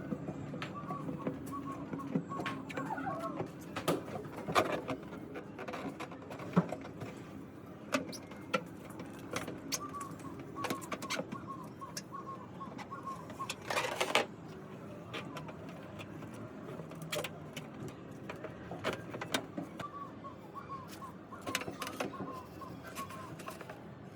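Scattered knocks and scrapes, the loudest a few seconds apart. A bird calls in three runs of short, wavering notes in the background.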